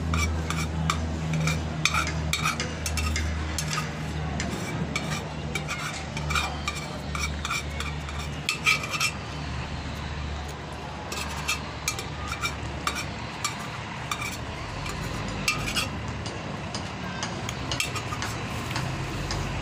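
Metal spoon clinking and scraping against a dish while someone eats, many short irregular clicks throughout. A steady low hum runs underneath, fading about halfway through.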